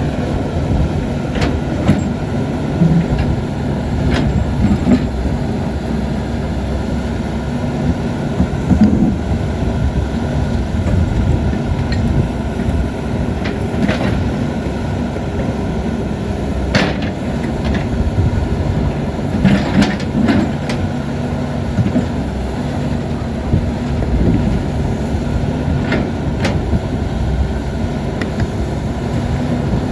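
CAT 320D excavator's diesel engine running steadily at working revs, with a few sharp knocks and clanks from the digging work now and then.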